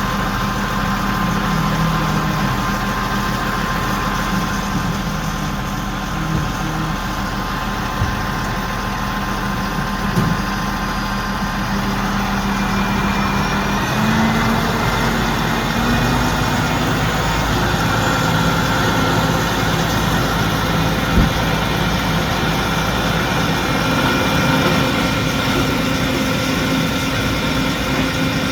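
A crane's engine running steadily under load, its pitch stepping up slightly about halfway through, with a few short knocks.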